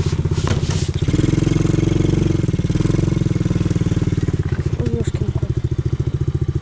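ATV engine running under way with a fast, even chug, picking up revs and getting louder about a second in, then easing back to a steady pace after about two seconds.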